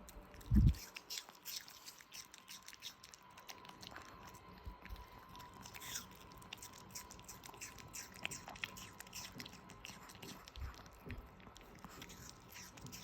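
A pet crunching and chewing pieces of apple: many small crisp crunches, with one low thump about half a second in.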